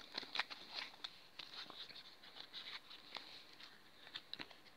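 A small paperboard box of staples being opened and handled by hand: faint, scattered crinkles and light clicks of card.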